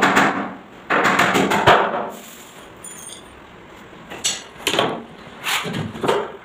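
Hammer knocking on the plywood panels of a wardrobe box frame, in bursts: a quick run of blows about a second in, then single knocks a few seconds later.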